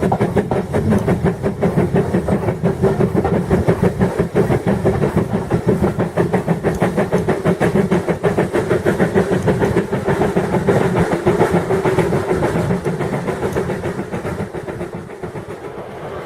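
Steam locomotive running, with a rapid, even rhythm of beats and a hiss of steam. It fades away over the last couple of seconds.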